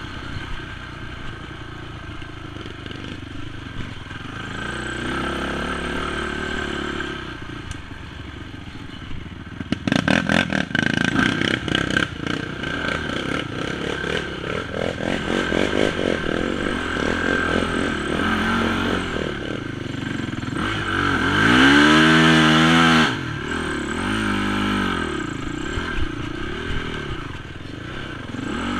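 Honda TRX450 quad's single-cylinder four-stroke engine revving up and down under hard riding, with a spell of rapid rattling and clatter about ten seconds in and a loud rev that rises and falls a little past twenty seconds.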